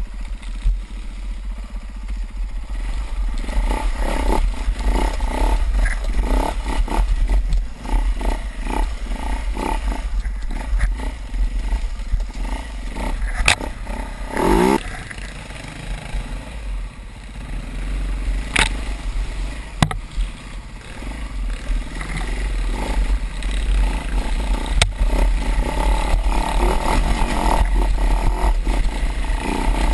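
Dirt bike engine running under way, heard from a helmet-mounted camera, its revs rising and falling with one quick rev-up about halfway through. There is heavy wind rumble on the microphone and a few sharp knocks as the bike rides over the trail.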